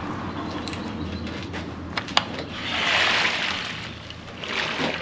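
Two sharp metallic clicks, then water pouring and splashing back into the pot as a basket of boiled crawfish is lifted out of the boil, the rush swelling and then fading as it drains.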